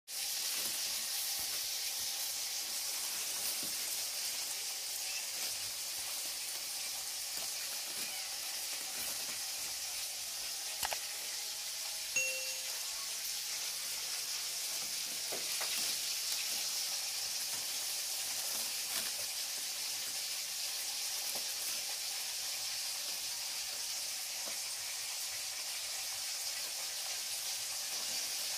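Plastic rubbish bag crinkling and crackling as kittens dig and rummage inside the bin, a steady crackly hiss with faint scattered clicks.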